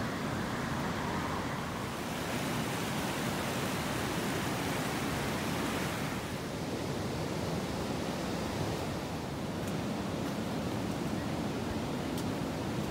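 Rain-swollen river pouring over a low weir: a steady rush of white water, a little duller from about halfway through.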